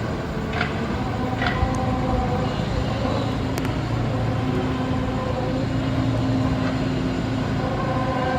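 Steady low rumbling drone with several faint held tones over it, the kind of sound passed around as a mysterious 'strange sound'. A few sharp clicks come in the first two seconds.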